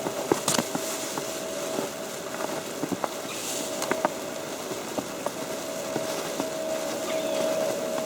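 Snow falling on an umbrella: scattered, irregular light ticks over a steady hiss, with a steady hum underneath.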